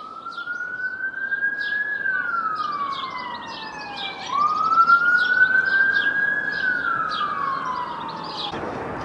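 Emergency vehicle siren wailing, going through two slow rise-and-fall cycles, each rise taking about two seconds and each fall a little longer. It cuts off suddenly near the end.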